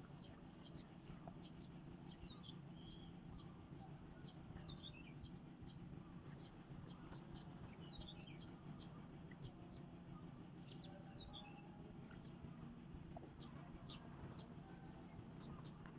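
Small birds chirping faintly, with short high chirps scattered throughout, over a steady low background rumble.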